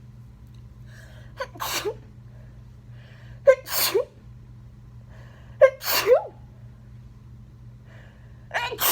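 A person sneezing repeatedly with the sneezes covered: three full sneezes about two seconds apart, each a short sharp catch of voice followed by a muffled blast, and a fourth starting near the end.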